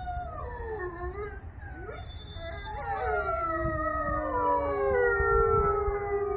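A pack of canines howling together, several overlapping voices gliding up and down. The chorus grows louder about halfway through, and near the end one lower howl is held.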